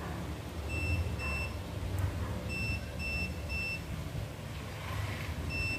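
Electronic buzzer beeping: short high-pitched beeps about a third of a second long, two about a second in and three more around the middle, over a low steady hum.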